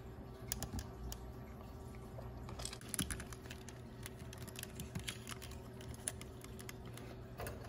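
Faint, scattered small clicks and taps of fingers handling the plastic head assembly of a Sega/Hasbro I-Dog Pup robot toy while hooking a paper-clip wire spring into it, over a low steady hum.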